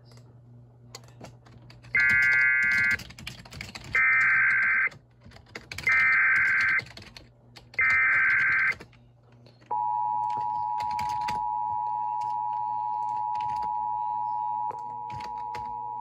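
Emergency Alert System Amber Alert coming in: a short multi-tone burst, then three one-second SAME header data bursts about two seconds apart, then the steady two-tone EAS attention signal starting about ten seconds in. A lower tone joins it near the end.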